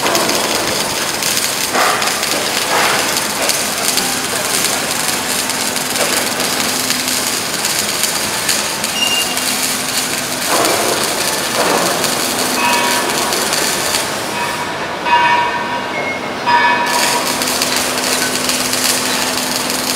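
Steady industrial machine noise from a metal-working workshop: a constant hum under a loud hiss, with a few short knocks and a brief higher ringing tone near the middle.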